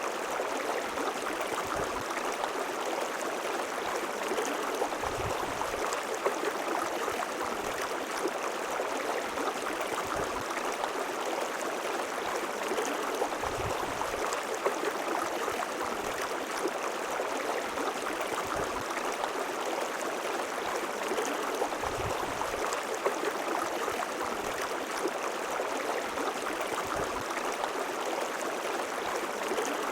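River water flowing steadily, an even rushing that never pauses, with brief low bumps every few seconds.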